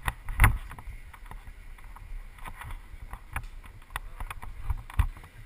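Muffled low rumble and wind buffeting on a helmet-mounted action camera in its sealed case as it moves slowly over rough ground. Irregular knocks and rattles come throughout, the loudest about half a second in and again near the end.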